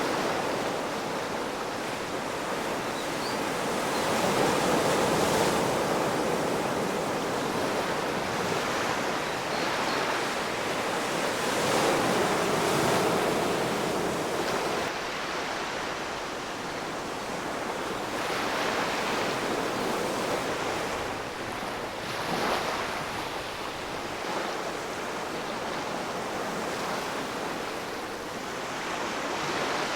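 Ocean waves breaking and washing on the shore, a continuous surf rush that swells every several seconds.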